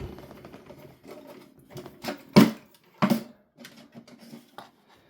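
Sony MZ-E730 portable MiniDisc player's mechanism running with a low whirring clatter and a few sharp clicks, the loudest about two and a half seconds in. The unit is noisier than these players normally are.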